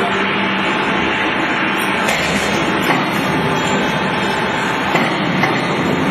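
Steady, loud workshop machinery noise with a low hum, broken by a few light clicks.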